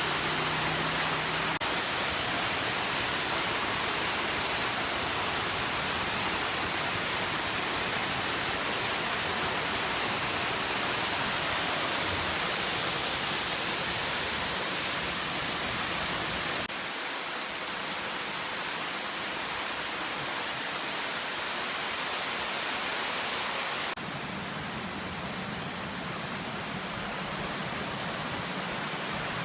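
Rushing water of a mountain waterfall and stream: a loud, steady, even hiss. The level drops suddenly twice in the latter half.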